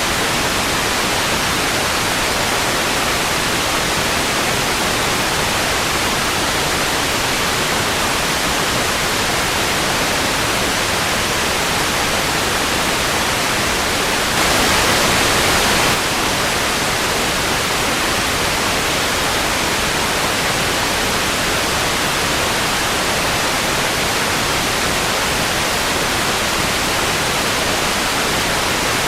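Steady television static hiss, with a slightly louder, brighter swell for a second or two midway.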